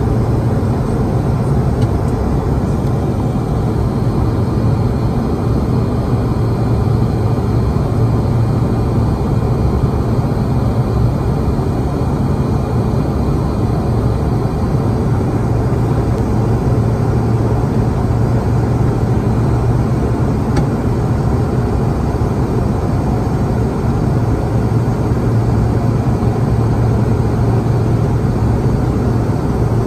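Steady cabin noise inside a Bombardier CRJ-200 regional jet in flight: the drone of its rear-mounted turbofan engines and airflow past the fuselage, with a strong low hum.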